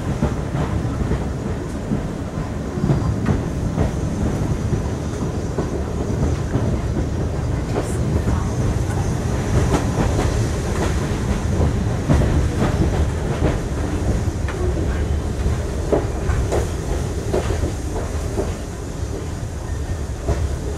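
Heritage railway passenger coach running on the rails, heard from inside the compartment: a steady low rumble of the wheels with irregular clicks and knocks from the track, as the train runs in alongside a station platform.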